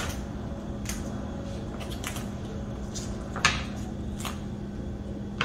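Leaves and stalks being snapped and torn off a raw cauliflower head by hand: a string of short, crisp snaps and rustles, the sharpest about three and a half seconds in.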